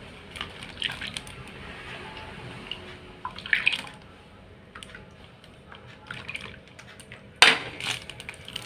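Coconut milk poured from a ladle through a plastic funnel into a plastic bag, liquid splashing and dripping. Near the end the plastic bag crinkles loudly as it is handled.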